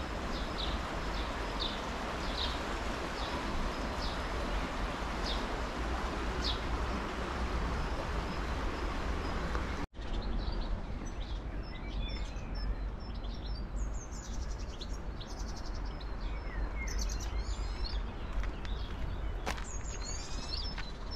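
Small birds chirping over steady outdoor background noise. In the first half there are short chirps repeated about every half second. After a sudden brief cut-out about ten seconds in, more varied song follows, with rising and falling notes.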